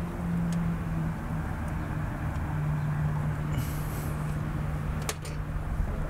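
Steady low hum of a running motor, its pitch stepping down slightly about two and a half seconds in, with a sharp click just after five seconds.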